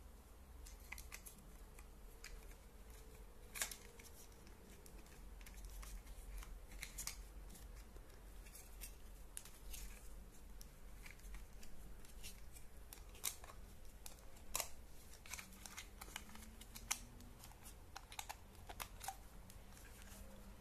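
Scattered light clicks and taps of plastic as a digital night vision monocular, its battery holder and strap are handled by hand.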